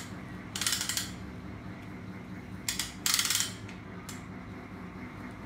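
Ratchet of a hand-lever puller clicking rapidly as its lever is worked, in two short bursts about two and a half seconds apart, with a few single clicks between.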